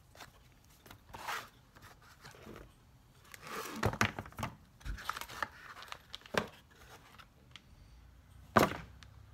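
Cardboard box and packaging rustling and crinkling as a fuel pressure regulator kit is unpacked, with a few handling noises, busiest a few seconds in. One sharp knock near the end, louder than everything else.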